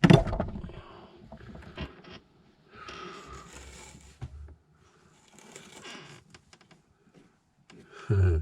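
Handling noises of hands-on work. A loud sharp clunk at the start rings on briefly. Then come stretches of scraping and rustling with scattered clicks, and a low thud near the end.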